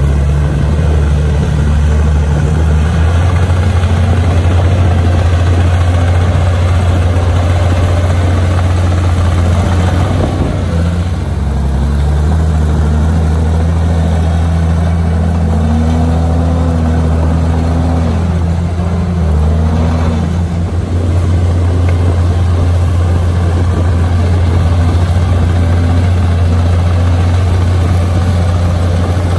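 Komatsu bulldozer's diesel engine running steadily as it works. Its pitch dips and shifts about ten seconds in and again around twenty seconds.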